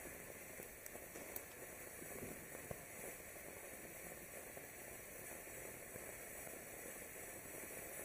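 Winda 'Silent Mode' ground fountain firework hissing steadily and fairly quietly as it sprays sparks, with a few faint crackles.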